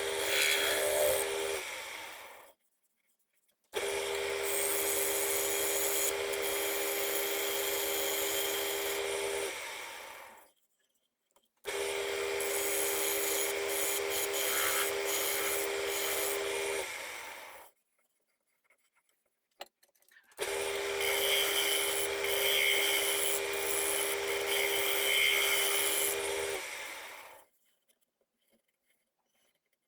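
Wood lathe running with a steady hum while a tool scrapes against the spinning wooden blank, in three long stretches broken by sudden silent gaps.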